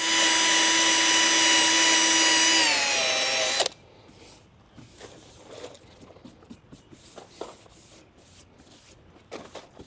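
Power drill spinning a 500-grit sanding disc against a plastic headlight lens, a steady whine with a hiss of abrasion. A few seconds in, the drill slows with its pitch dropping and then stops, followed by faint small handling noises.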